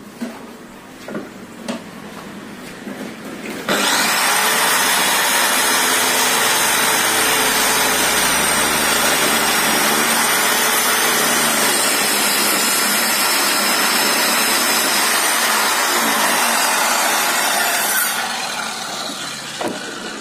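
Circular saw (Uchiha UC 255, 900 W, fitted with a 60-tooth Bosch 7¼-inch blade) ripping lengthwise through a thick wooden beam: it comes on abruptly about four seconds in and runs loud and steady with a high whine for about fourteen seconds, then drops away near the end as the saw stops. A few knocks from handling the wood come before the cut.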